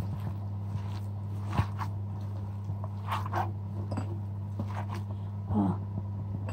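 A hand squishing and kneading raw minced meat with chopped onion, chillies and spices in a ceramic bowl: soft, wet, irregular squelches, a little louder around the middle and near the end, over a steady low electrical hum.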